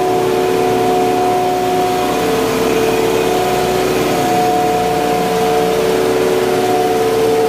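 Ice plant machinery running: a loud, steady mechanical hum with several held tones over it.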